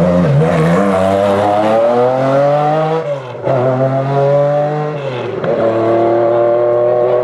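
MG Metro 6R4 rally car's 3-litre V6 accelerating hard. The revs climb, with two quick upshifts about three and about five seconds in, then the note rises steadily again.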